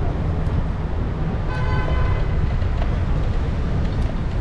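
Street traffic noise with a steady low rumble. About one and a half seconds in comes a short horn toot, lasting about half a second.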